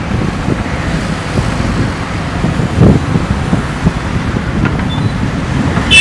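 JCB 3DX backhoe loader's diesel engine running steadily while the backhoe arm digs, a low rumble that briefly swells louder about three seconds in.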